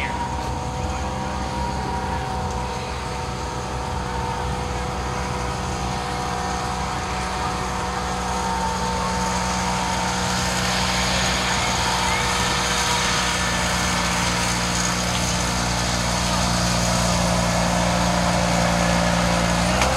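Small tractor engine of a quarter-scale pulling tractor running at a steady pitch, growing a little louder about halfway through.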